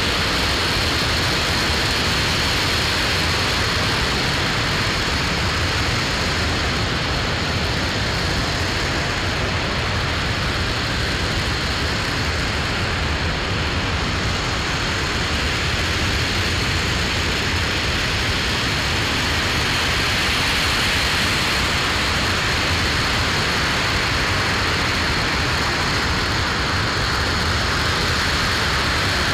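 Aerojet Rocketdyne RS-25 liquid-hydrogen/liquid-oxygen rocket engine running steadily in a long hot-fire test. It makes a loud, even roar that does not let up, with a thin high whistle held on top.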